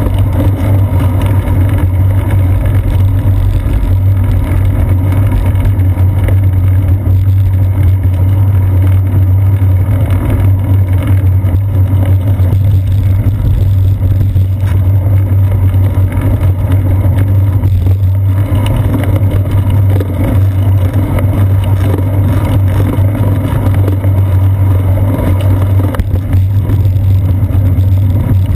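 Steady, loud low rumble of wind and road vibration picked up by a seat-post-mounted GoPro Hero 2 while the bicycle is ridden.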